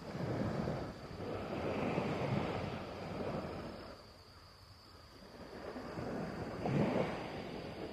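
Wind and sea waves at the water's edge, a rushing noise that swells and fades in slow surges, with wind buffeting the microphone.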